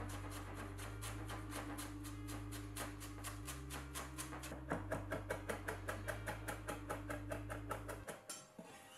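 A chef's knife rapidly chopping parsley on a wooden cutting board in a fast, even run of chops that stops near the end, over background music.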